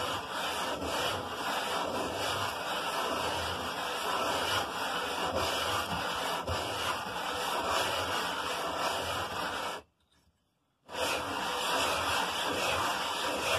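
Briggs & Stratton 5 HP flathead engine block rubbed in circles by hand on sandpaper backed by a flat board: a steady, scratchy rasp of metal on abrasive as the head-gasket surface is lapped flat. It breaks off for about a second near the end, then resumes.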